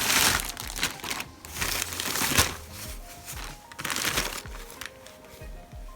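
Plastic packaging crinkling in several bursts, a few handlings over a few seconds, as a new hair dryer is unwrapped.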